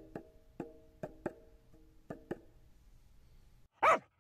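Background music of sparse, short percussive notes, about seven in the first two and a half seconds, then a single loud, short call near the end with a pitch that bends down.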